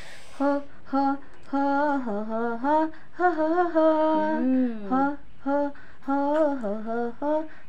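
A woman's voice singing a tune without accompaniment, a few short separate notes at first, then longer held notes that waver and slide in pitch.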